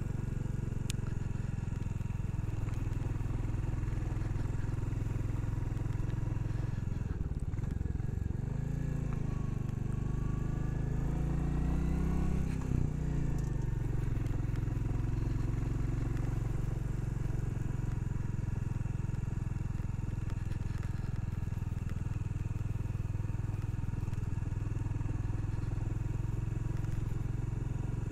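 Royal Enfield Classic 350's single-cylinder engine pulling uphill under load. Its note dips and rises about a third of the way in as the revs change, then runs steadily.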